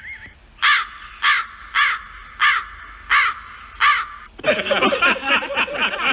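Crow cawing six times, about two caws every second and a quarter. About four and a half seconds in, a fast, high-pitched chattering laugh takes over.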